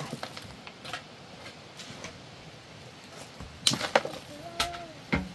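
A spade digging into a pile of dirt and stones and tipping it into a wheelbarrow: scattered scrapes and knocks, with a cluster of loud clattering knocks a little past halfway and two more single knocks near the end.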